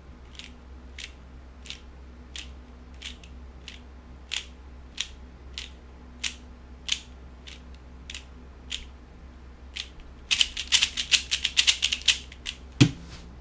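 Plastic 3x3 speed cube layers being turned by hand: single clicking turns at an even, slow pace, about three every two seconds, one per move of the algorithm. Near the end comes a quick run of rapid clicks as the sequence is turned at speed, then one sharper knock.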